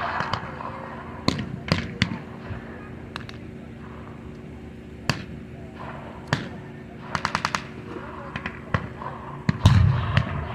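Battle-reenactment gunfire from blank rounds: scattered single rifle shots, a short machine-gun burst of about seven rounds a little past the middle, and a louder, deeper bang near the end.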